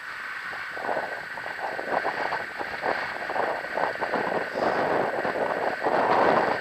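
Longboard wheels rolling over asphalt, a steady gritty rumble mixed with wind buffeting the microphone, getting a little louder toward the end.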